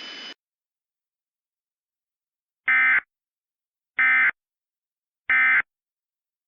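Emergency Alert System end-of-message code: three identical short bursts of digital data tones, each about a third of a second long and about a second apart, signalling that the alert has ended. Before them, a faint hiss from the alert audio cuts off just after the start.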